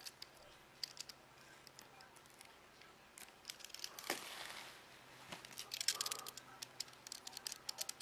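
Utility knife blade slitting plastic shrink wrap along the edge of a cardboard box: small scattered clicks and crinkles, with a longer scraping swish about four seconds in and a cluster of crinkling about six seconds in.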